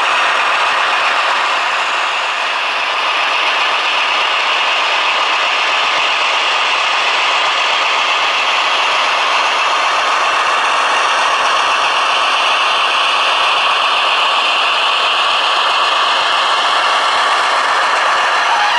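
Piko V 200 model locomotive and its train running on the model railway track: a steady mechanical rattle of wheels and running gear that stays even throughout.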